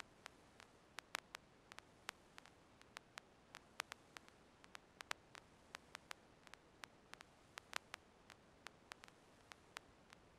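Near silence: a faint hiss with short, sharp clicks at irregular spacing, a few each second.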